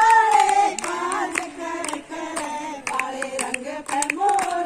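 A group of women singing together, with hand-clapping keeping time.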